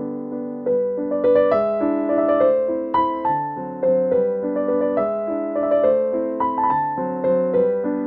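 Background piano music: a melody of struck notes, each fading, over lower chords.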